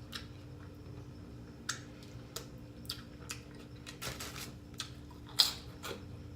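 Close-miked eating sounds: irregular wet clicks and mouth smacks while chewing, with one louder smack about five seconds in, over a steady low hum.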